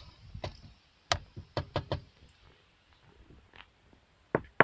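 Sharp knocks and taps inside a Datsun mi-DO's cabin: one about half a second in, a quick run of about five a second or two in, and another near the end. No squeak comes from the freshly glued centre console.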